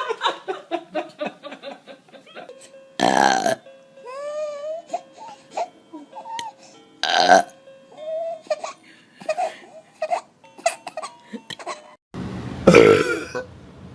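A person burping loudly three times, about three, seven and twelve and a half seconds in, each burp short and deep. Quick bursts of laughter come at the start.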